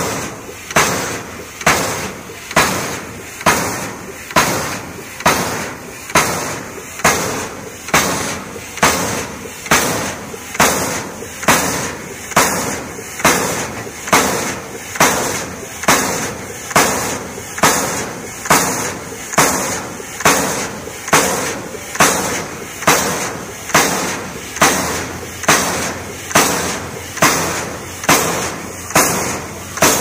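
Steam pile-driver hammer pounding a wooden pile, a steady run of heavy blows a little faster than one a second.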